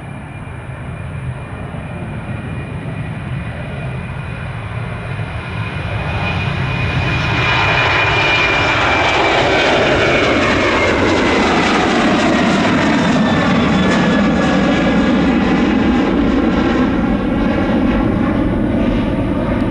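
A jet airliner's engines passing close by. The roar swells about six seconds in and then stays loud, while a whining tone glides down in pitch as the aircraft goes past.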